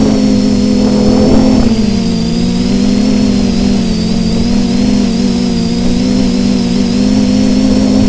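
Quadcopter's electric motors and propellers humming steadily, heard from the camera on board the drone, with a high motor whine over the hum. The pitch wavers and dips a little about two seconds in as the throttle shifts. Rough wind buffeting sits underneath.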